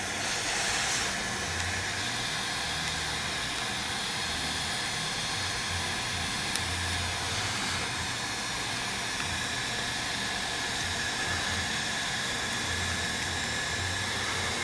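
Heat gun blowing steadily, a constant fan hiss with a faint high whine, warming the glass to soften the digitizer adhesive.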